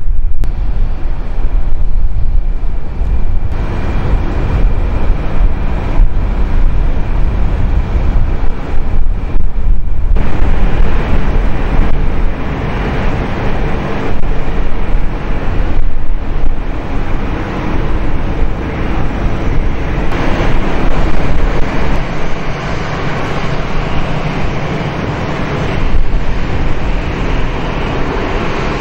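Wind buffeting the microphone in gusts over a steady distant rumble of airport noise.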